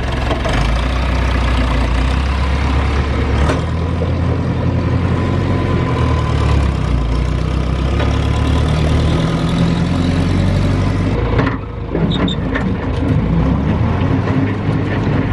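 Tractor engine running steadily while pulling a bush hog rotary cutter, with a brief dip in the sound about three quarters of the way through.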